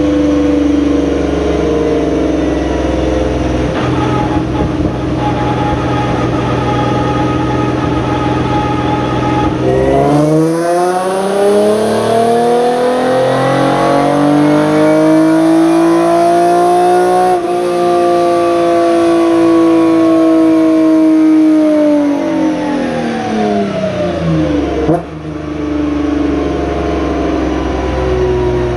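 Hyundai Genesis Coupe 3.8 race car's V6 running on a chassis dynamometer. The note holds steady for about ten seconds, then rises in pitch over a few seconds and stays high, with a small step in the note about 17 seconds in. It then winds slowly back down, with a sharp click about 25 seconds in before it settles to a steady lower note.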